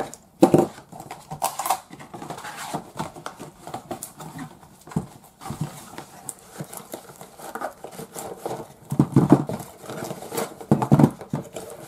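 Handling noise on a table: cardboard boxes and plastic figures knocking and clicking as they are moved, with a busier run of knocks and rustling about nine seconds in as boxes are set down.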